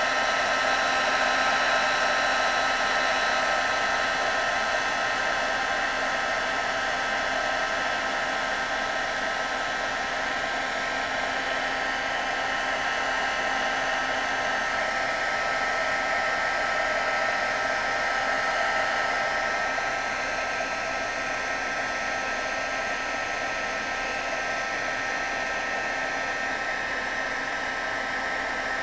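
Craft heat gun running steadily: an even rush of blown air with a steady high whine from its fan motor, as it heats wax paper over a candle to melt a tissue-paper image into the wax.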